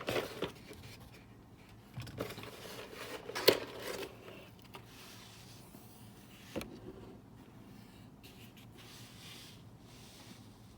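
Hands handling packaging during an unboxing: light scraping and rubbing with a few sharp clicks, the loudest about three and a half seconds in and another near six and a half, quieter in the second half.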